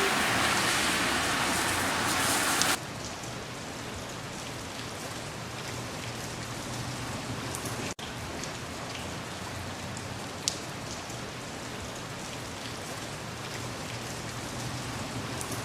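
Steady rain falling, a dense loud hiss for about the first three seconds that cuts abruptly to lighter rain with scattered individual drops; the sound drops out for a moment about eight seconds in.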